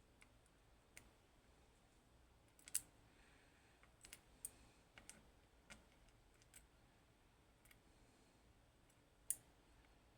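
Small lock pins and springs clicking lightly as they are handled and set down one by one: a dozen or so scattered faint clicks, with two sharper ones about three seconds in and near the end.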